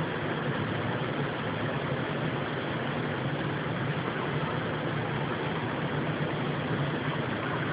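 Steady low droning hum under a constant hiss, with no change in pitch or level: the unexplained background rumble that sounds like a distant helicopter.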